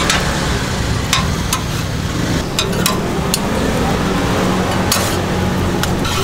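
Vegetable egg rolls pan-frying on a flat griddle: a steady sizzle, with sharp metallic clinks every second or so and a low steady hum underneath.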